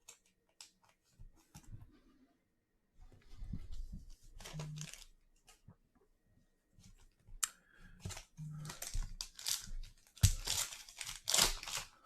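A foil trading-card pack wrapper being crinkled and torn open in irregular crackling bursts, a short stretch a few seconds in and then louder and denser over the last few seconds.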